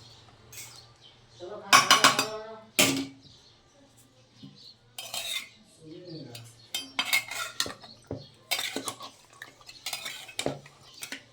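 Metal spoon clinking and scraping against a cooking pot and dishes in irregular knocks, as curry is stirred or served. There is a short vocal sound about two seconds in.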